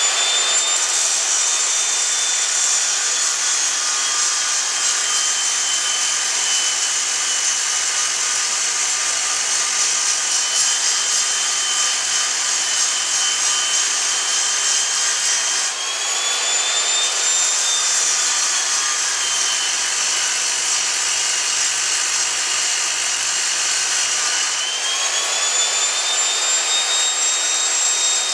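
Electric angle grinder grinding down a steel bushing sleeve seized onto a control arm rod held in a vise. Its high motor whine sags in pitch while the wheel bites into the metal and climbs back when it is eased off, once about halfway through and again near the end.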